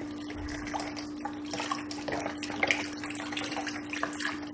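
Chicken broth pouring from a carton into a stock pot, splashing over raw chicken pieces, with a steady low hum underneath.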